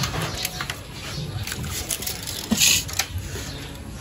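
Light handling noises from measuring and marking an aluminum frame with a tape measure and pencil: scattered faint clicks and taps, with one short scratchy hiss about two and a half seconds in.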